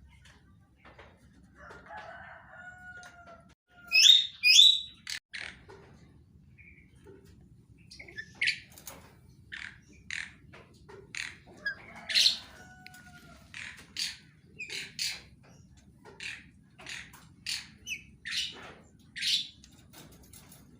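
Birds chirping in short, sharp high calls repeated every second or so, with two loud calls about four seconds in. Twice a lower, drawn-out call that falls slightly in pitch sounds under them.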